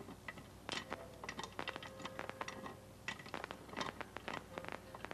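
Cartoon sound effect of a mechanic working with a wrench: a fast, irregular run of clicks and taps.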